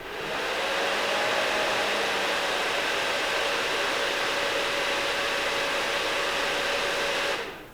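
Desktop PC's cooling fans running at full speed at first power-on after a CPU swap: a steady rushing whoosh with a whine that climbs slightly as they spin up. About seven seconds in, the fans drop back sharply to a quiet hum as the board takes control of fan speed.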